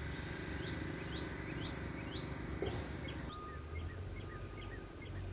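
Songbirds singing on a nature trail: a run of quick upswept chirps, about two a second, then a series of shorter, lower notes, over a steady low outdoor rumble.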